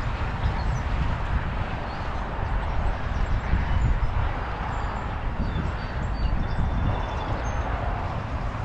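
Train moving slowly through an ungated crossing: a steady low rumble.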